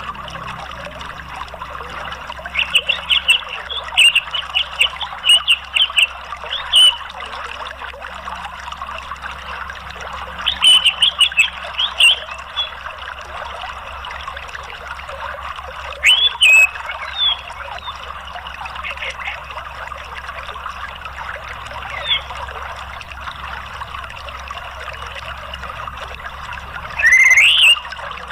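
Orange-headed thrush giving clusters of short, high chirping calls, with single calls between and one rising call near the end, over a steady sound of running water.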